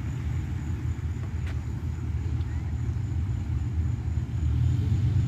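Steady low engine rumble that grows louder about four seconds in.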